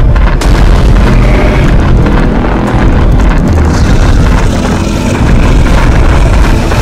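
Loud, dense action-film soundtrack of deep booming effects and music, heavy in the bass and unbroken.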